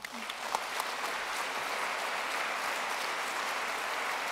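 Audience applauding: the clapping swells up within the first moment and then holds steady.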